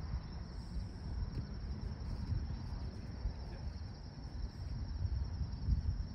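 Wind rumbling on the microphone, rising and falling, with a faint steady high-pitched drone underneath.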